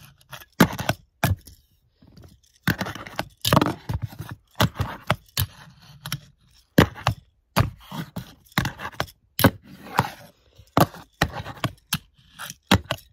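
Tech Deck fingerboard clacking and scraping on a ledge obstacle: irregular sharp pops and landings mixed with short grinding scrapes, dozens of times over the stretch.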